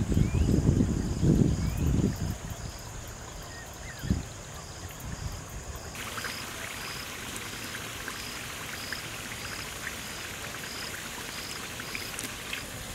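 Steady hiss of a large pot of biryani boiling over a wood fire, with scattered faint clicks. An insect chirps in a regular pulse a little more than once a second. A low rumble, like wind on the microphone, fills the first two seconds, and a soft thump comes about four seconds in.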